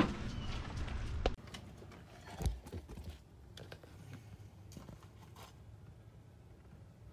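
Scattered light knocks and clicks over a quiet background, the strongest about two and a half seconds in and a few more in the middle.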